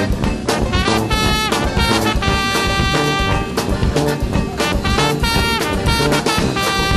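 Music with a steady beat: an instrumental break between the sung verses of a Czech-language song.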